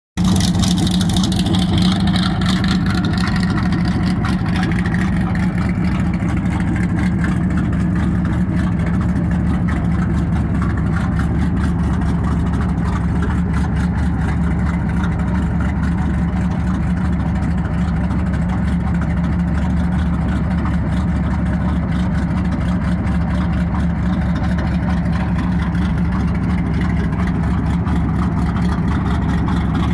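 Drag car's dual four-barrel carbureted engine idling steadily while its carburetors are tuned.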